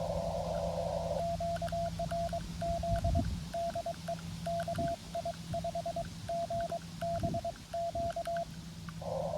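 Xiegu G90 transceiver's Morse code sidetone as a CQ call is sent: one steady beeping tone keyed in dots and dashes for about seven seconds, with faint key clicks. The filtered receiver hiss mutes while sending and comes back near the end.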